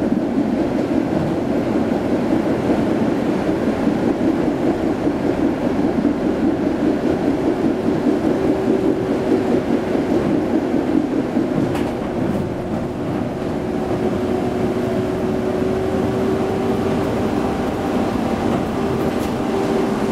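Konstal 105N tram running along the track, heard from inside the passenger compartment: a steady rumble of wheels on rail. There is a brief dip with a few clicks about twelve seconds in, and a steady hum comes in over the last few seconds.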